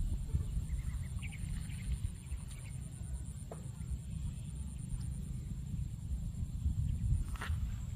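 Wind buffeting the microphone, a low, uneven rumble, with a faint steady high whine above it.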